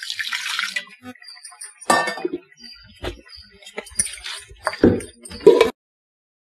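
A short hiss as water is poured into a clay pot of simmering kurma, then about five sharp clinks of a steel vessel knocking against the pot. The sound cuts off abruptly about two-thirds of the way through.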